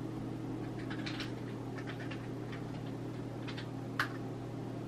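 Faint ticks of keys being typed, then a sharper click about four seconds in, over a steady low hum.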